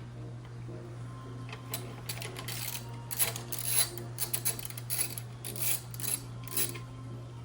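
Hand tools working on a metal bolt and heat shield: irregular clicking, scraping and rattling from about two seconds in, as a bolt that was not going in straight is backed out.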